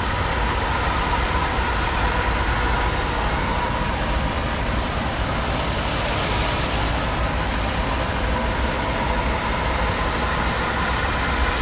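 1997 one-ton van driving slowly through shallow flood water, heard from inside the cab: a steady, even rush of engine and water around the tyres.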